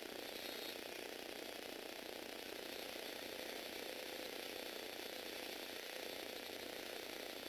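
Tomy Aero Spider electric motor and Lego Technic gear train of a remote-control four-wheel-drive car running, a steady whirring clatter of plastic gear teeth.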